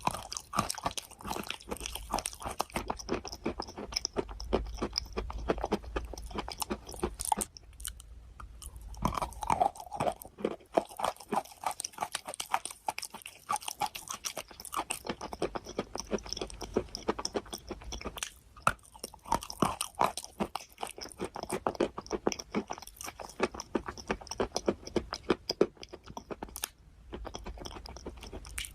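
A person chewing and crunching food close to the microphone: wet crunching in dense runs of crackles, with a few brief pauses between mouthfuls.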